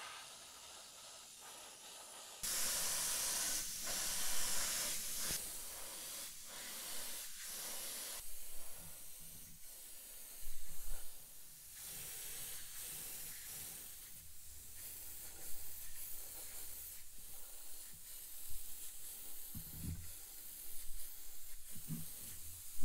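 Gravity-feed airbrush spraying paint: a steady hiss of air and atomised paint that gets louder about two and a half seconds in, then rises and falls as the trigger is worked. A few soft knocks come near the end.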